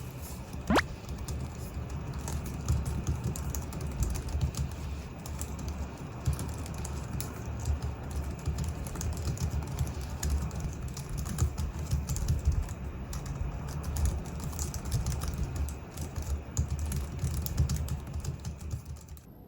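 Continuous typing on a Logitech MX Keys Mini's low-profile scissor-switch keys: a steady run of quick, irregular key clicks.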